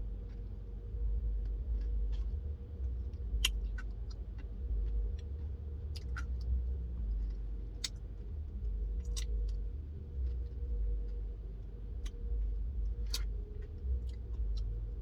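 Low steady rumble of a car heard from inside the cabin, with scattered small clicks and smacks of someone eating.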